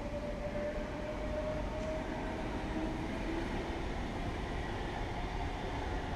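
Red DB regional electric multiple unit moving along a far track: a steady low rumble with its traction motors whining in a tone that rises slowly in pitch.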